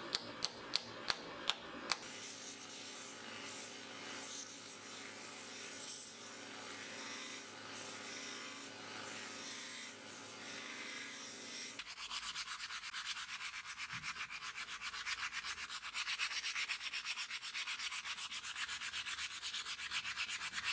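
About six quick hammer taps on a wooden sword handle. Then a belt grinder runs steadily with the handle held against its belt. A little past halfway the machine sound stops, and the handle is rubbed by hand with a sanding sponge in fast, even strokes.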